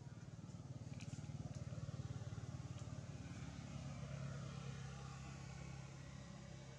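A motor vehicle engine running as it passes by: a low pulsing hum that swells to its loudest around the middle and then fades, with a few faint clicks.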